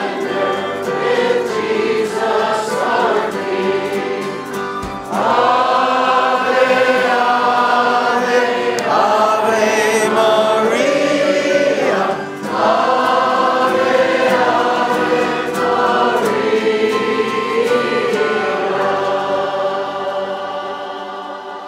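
Congregation singing a hymn together, in phrases of held notes with short breaks between them. The singing fades away near the end.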